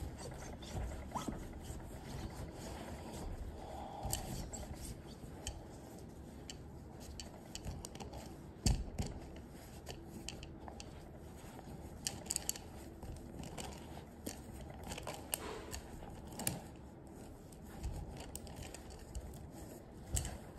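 Terry towel rubbing and scraping against a glass vase full of seashells, handled with gloved hands, with scattered light clicks and one sharp knock a little before halfway.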